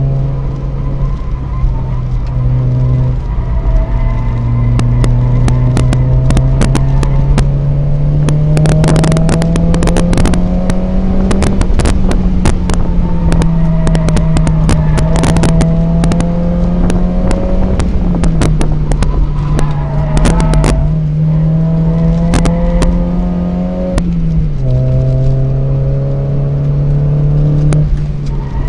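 Mazda MX-5 NA 1.8's four-cylinder engine heard from inside the cabin while the car is driven hard round a circuit. The engine note climbs slowly, then drops sharply about five times between climbs. A steady rush of road and wind noise runs underneath, with frequent clicks and knocks.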